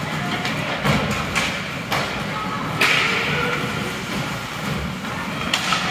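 Ice hockey play in a rink: a handful of sharp knocks from sticks, puck and boards over a steady background hum. The loudest knock, about three seconds in, is followed by a short hiss.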